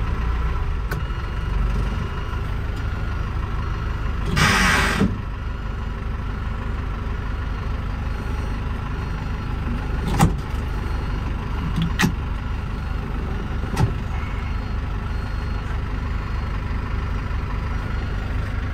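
Diesel engine of a 2006 Hino cargo truck idling steadily. A short hiss comes about four seconds in, and a few sharp clicks come later.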